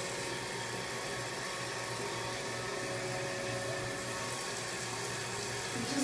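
Steady hiss with a low, even hum, unchanging throughout: background machine or water noise in a small tiled bathroom.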